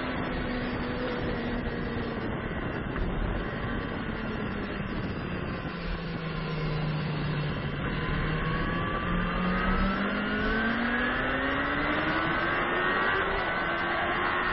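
Sport motorcycle engine heard from on board at track speed, with wind rushing over the microphone. The engine note falls as the bike slows into a turn, then rises steadily and grows louder as it accelerates out onto the straight.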